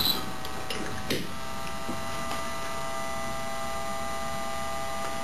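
Steady electrical hum with several steady overtones from an HHO electrolysis generator rig running at 10 volts and drawing over 40 amps. There is a faint click about a second in.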